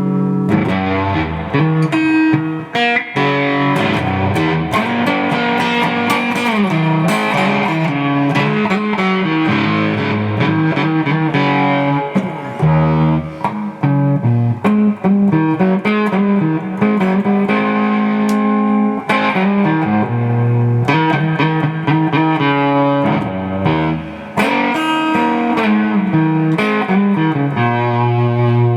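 1986 Fender Contemporary Telecaster electric guitar being played, a continuous run of single notes and chords, as a test that the repaired pickup selector switch works.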